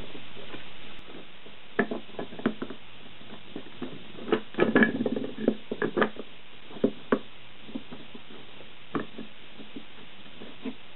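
Irregular knocks and clatter as 3D-printer frame parts are handled on a workbench: threaded steel rods with nuts, printed plastic corner pieces and a wooden spacer block set against one another. The knocks come thickest around the middle, with a few single ones later.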